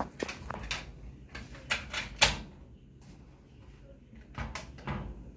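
Plastic clicks and snaps from a handheld cassette recorder as the tape is put back in and its cassette door and keys are worked: a run of sharp clicks, the loudest a little past two seconds in, and a few more near the end.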